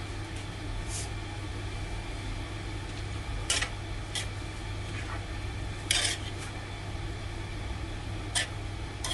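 A spoon stirring diced meat in a stainless-steel wok, with about six sharp scrapes and knocks against the pan, the loudest about six seconds in. A steady low hum runs underneath.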